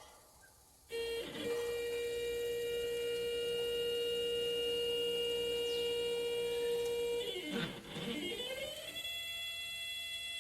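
CNC plasma table's stepper motors driving the gantry through a dry run with the torch not firing: a steady whine starts about a second in. Near the end the pitch drops and climbs again as the motion slows and speeds up, then the whine settles at a different pitch.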